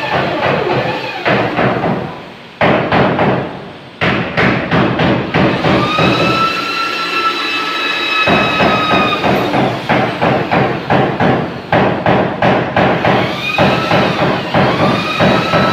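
Corded electric hand drill boring through thin galvanized iron sheet: the motor whine rises as it spins up and falls away as the trigger is released, over a rapid rattling of the bit in the metal.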